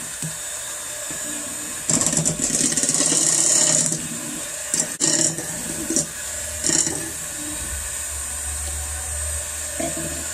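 Old-fashioned electric hand mixer running, its beaters whirring through cream cheese and sugar in a glass bowl. It gets louder about two seconds in for a couple of seconds, and there are a few short louder bursts around the middle.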